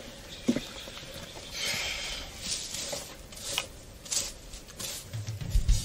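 Footsteps and rustling on a dry forest floor of pine needles and leaves: a handful of scattered crunches and one longer shuffle about two seconds in. Music with steady low notes comes in near the end.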